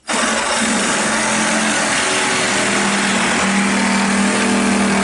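Reciprocating saw running steadily with its blade cutting through the fiberglass wall of a bathtub.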